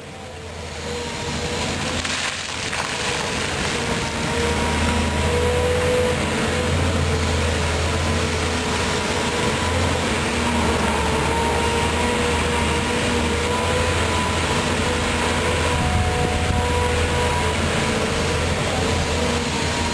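Volvo EC210B tracked excavator at work, fading in over the first two seconds. Its six-cylinder diesel runs steadily under load, with a high whine that wavers in pitch, while the bucket digs and dumps soil with rough scraping and crunching.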